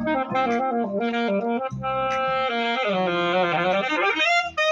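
Saxophone played live, a melody of short stepped notes, then a held note about halfway through and a long note that bends down and back up before a higher note near the end.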